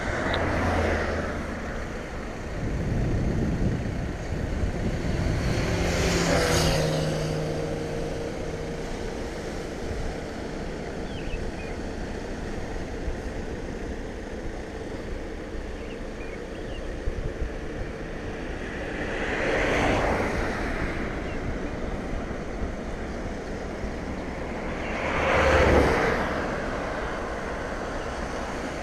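Wind on the microphone over the wash of surf on a rocky shore, with vehicles passing on the coastal road several times, each swelling up and fading away.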